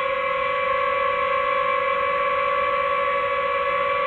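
Quadcopter drone hovering overhead, its propellers giving a steady high-pitched whine.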